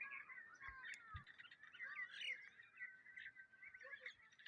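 Faint chirping and twittering of small birds: many short chirps and brief pitch glides, scattered and overlapping.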